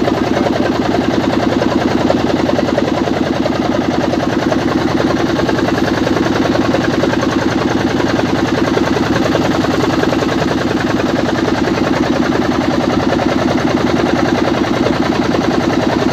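Motorboat engine running steadily at an even speed, heard from aboard the boat as a fast, constant chugging.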